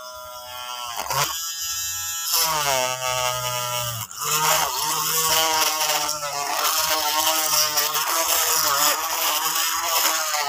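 Mini electric rotary drill whining as it drills small holes through a clear plastic panel, its pitch sagging and recovering as the bit bites and frees.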